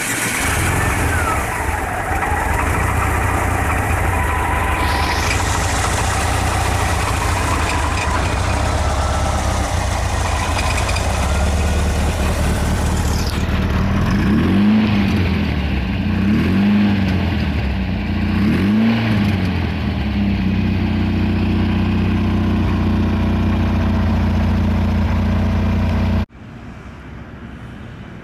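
1974 Porsche 914's air-cooled 1.8-litre fuel-injected flat-four running at a steady idle. About halfway through it is revved three times, each blip rising and falling about two seconds apart, then settles back to idle. Near the end the sound drops suddenly to a quieter engine sound of the car driving.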